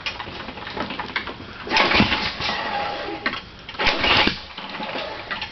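Flooded Toro walk-behind mower engine being pull-started, with two hard pulls about two seconds apart; the engine sputters on them but does not catch.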